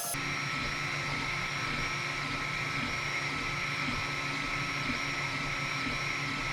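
XVICO X3S 3D printer running mid-print: its stepper motors whine steadily with several held tones over a low, uneven pattern of head moves, with a fan hissing underneath.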